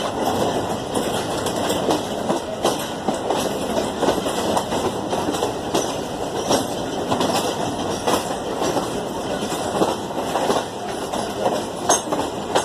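A train passing close by, its wheels clattering over the rail joints in a fast, uneven run of knocks over a steady rumble.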